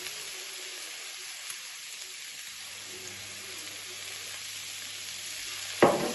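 Chicken and vegetables sizzling in hot oil in a stir-fry pan: a steady frying hiss, with one short, louder sound near the end.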